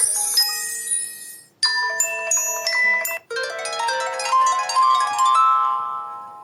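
Samsung Galaxy Feel stock phone tones played one after another. A bell-like mallet melody fades out about a second and a half in, a short high chime phrase follows, then a harp-like rising plucked arpeggio that rings and fades near the end.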